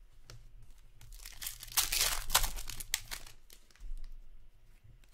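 Foil trading-card pack being torn open and its wrapper crinkled, loudest about two seconds in and dying away by the second half, followed by a few light clicks.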